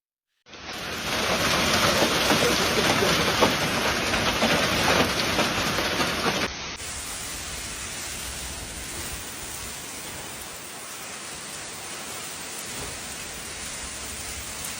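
Heavy rain pouring down as a steady hiss. About six and a half seconds in it cuts to a second, quieter stretch of rain.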